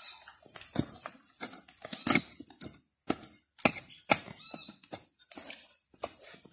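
A metal hand digger chopping and scraping into soil and dry stalks: irregular strikes, the loudest about two, three and a half and four seconds in. A high insect drone fades out in the first second.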